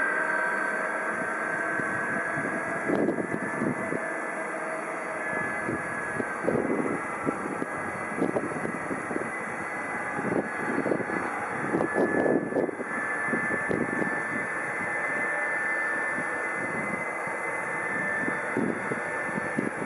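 Boeing 747-400's four Pratt & Whitney PW4056 turbofans running at low thrust as the jet taxis, a steady high whine over a broad rumble that swells unevenly in gusts.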